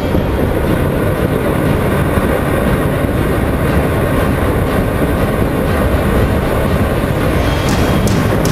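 Heavy, steady wind rumble on a bike-mounted camera at highway speed, over the Honda CBR 125R's single-cylinder engine running.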